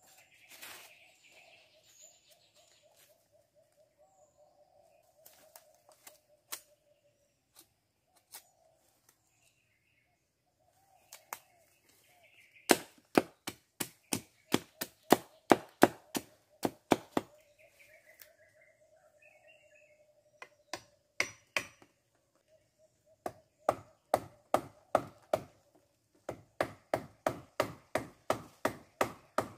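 Machete blade chopping a wooden stick. Sharp, hard strikes come in runs of about three a second, starting about twelve seconds in, pausing briefly, and becoming steady and continuous near the end.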